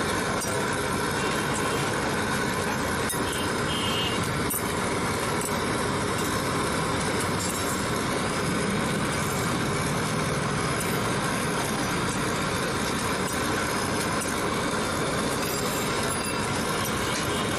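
Steady, unbroken background noise at a street food stall where chapatis cook on a large flat griddle, with a few faint clinks near the start.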